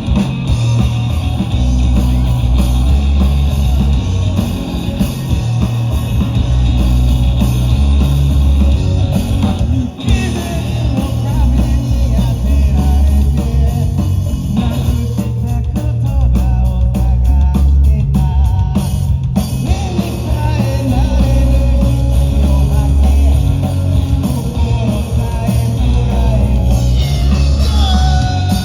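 Live rock band playing, with heavy bass and drums, electric guitar and sung vocals. The music thins out briefly about a third of the way in, and drum hits stand out in a sparser passage around the middle.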